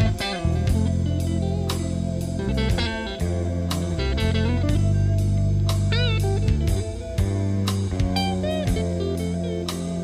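Electric Fender Stratocaster played dry, with no reverb: a bluesy lead line with string bends, around 6 s and again about 8.5 s in. It plays over a backing track with a steady drum beat and bass.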